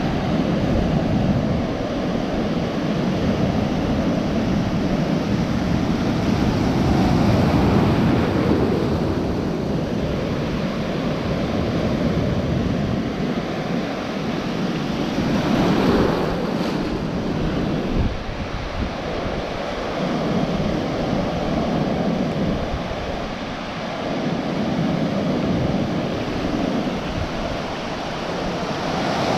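Ocean surf close to the microphone: waves breaking and foamy water washing in and out, with wind rumbling on the microphone. The wash swells louder about seven and sixteen seconds in.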